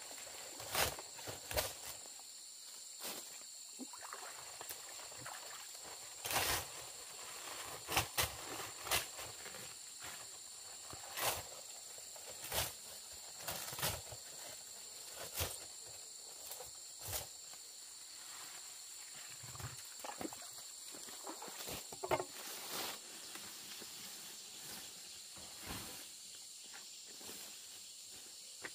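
Irregular sharp knocks and taps, one every second or two, some in quick pairs, over a steady high-pitched drone of insects.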